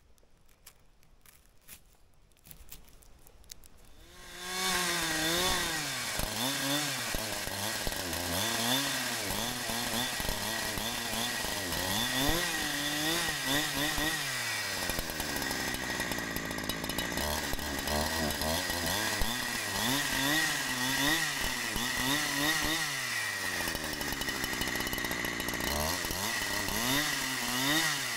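After a few faint handling clicks, a gasoline chainsaw comes in about four seconds in and runs loud and steady, ripping lengthwise through a spruce log, its engine pitch rising and falling again and again as the bar works along the cut.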